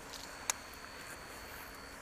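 A single sharp click from a baitcasting reel being handled, about a quarter of the way in, over a faint steady high whine.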